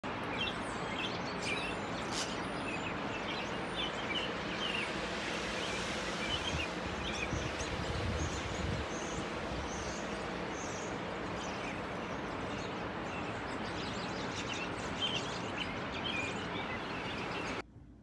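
A flock of American robins calling, many short chirps scattered throughout over a steady background hiss; the sound cuts off suddenly near the end.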